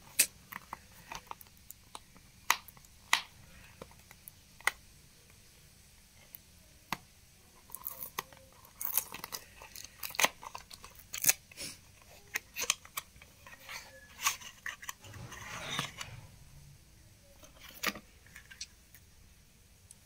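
Hands opening a small white cardboard earphone box: irregular sharp clicks and crinkles as the seal is peeled and the card flaps and plastic tray are handled, with a longer rustle about three-quarters of the way through.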